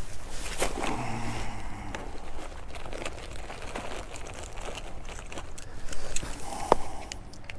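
Close handling noise: rustling with scattered sharp clicks and knocks, the loudest two about half a second in and near the end, as a freshly caught smallmouth bass is readied for weighing on a fish scale.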